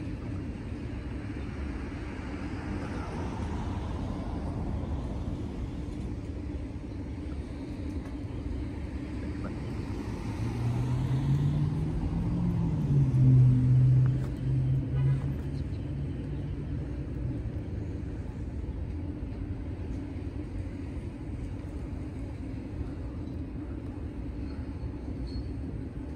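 Steady traffic rumble. About ten seconds in, a car engine grows louder, peaks for a few seconds and fades as it passes.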